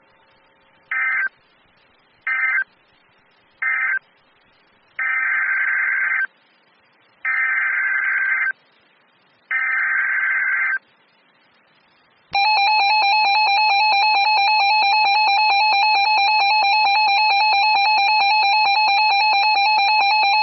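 NOAA Weather Radio Emergency Alert System (SAME) data bursts: three short buzzing end-of-message bursts, then three longer header bursts of about a second each, announcing a new warning. About twelve seconds in, the steady warning alert tone starts and holds.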